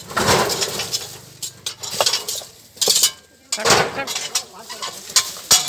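Garden rake scraping through dry leaves and rubble, with stones knocking and clinking against each other in a series of short, sudden scrapes and knocks.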